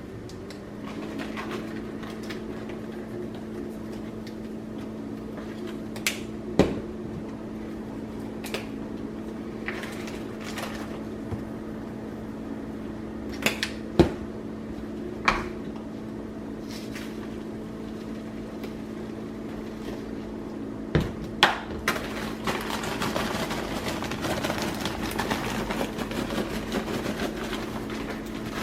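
Whirlpool microwave oven starting up about half a second in and running with a steady hum. Popcorn kernels pop now and then as sharp cracks, then turn into a dense, rapid run of popping near the end.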